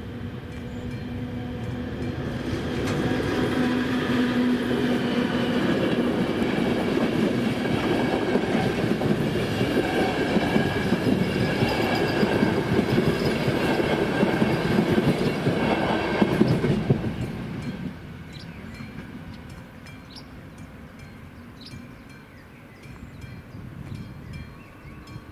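Passenger express train of Czech Railways coaches passing over the level crossing, wheels clattering on the rails. The noise builds over the first few seconds, stays loud for about fifteen seconds, then drops off sharply as the last coach clears.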